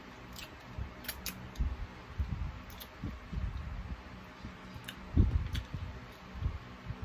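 Close-miked eating of chicken feet by hand: wet mouth clicks, sucking and chewing, with irregular sharp little clicks and soft low thuds, the loudest a little after the five-second mark.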